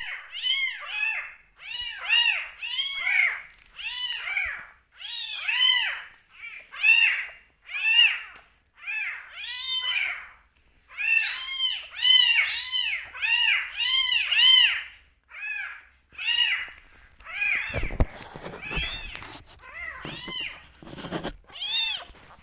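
Young kittens meowing loudly and insistently at bottle-feeding time, a quick run of short rising-and-falling cries, about two a second. Some cries overlap as the two kittens call together. Handling and rustling noises with a couple of thumps come in near the end.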